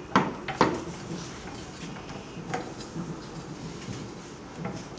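Silicone cover being pressed by hand into the frame of a sublimation heat press's vacuum plate: two sharp knocks within the first second, then a few softer taps of fingers on the rubber and frame.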